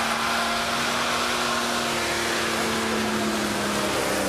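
Custom Land Rover Discovery's 4.2-litre V8 engine running at steady revs with a whine over it, the pitch easing down slightly near the end.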